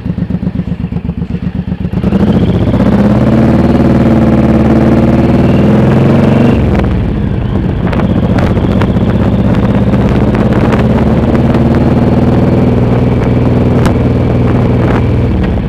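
Suzuki C1800R's V-twin engine pulling away: it runs low and pulsing for about two seconds, then the revs climb under throttle. They drop sharply at a gear change around six and a half seconds in, and the engine then runs steadily.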